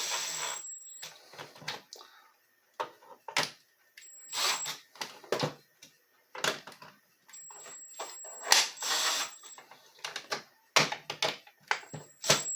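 Scattered clicks, taps and short scraping knocks of small screws and a plastic tool housing being handled and fitted together, with a few brief louder bursts.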